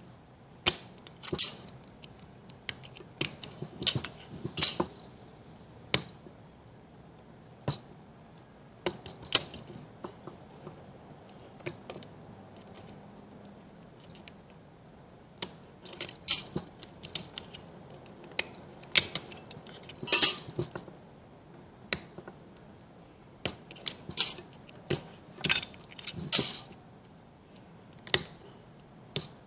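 Thin steel transformer laminations being pried loose from their varnish and pulled out one at a time with a small blade: irregular metallic clicks and clinks, some in quick clusters.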